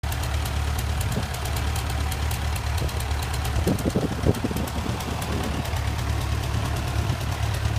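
Vintage farm tractor engine idling steadily, running smoothly and warm after hours of hard work, with a short patch of louder, uneven beats about four seconds in.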